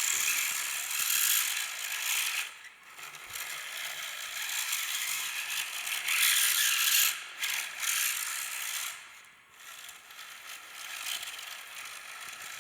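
Lego Technic RC car driven by a hobby-grade electric motor: its Lego gears and differential give a high, gritty rattle that rises and falls with the throttle and drops away briefly twice, as the car is driven hard.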